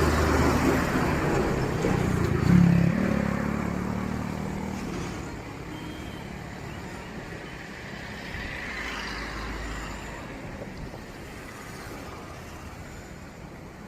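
A motor engine running with a steady low hum, loudest in the first few seconds, then fading gradually.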